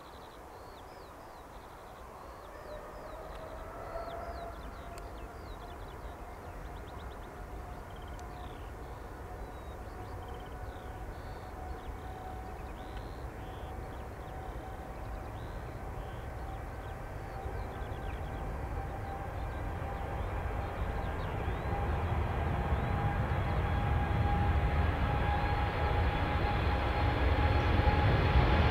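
KLM Boeing 787-10 airliner departing, its jet engines giving a steady whine over a low rumble that grows steadily louder. Small birds chirp faintly in the first half.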